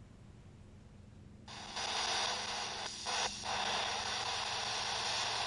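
Spirit box sweeping radio stations, giving a steady hiss of static that comes in about a second and a half in, with two brief breaks near the middle.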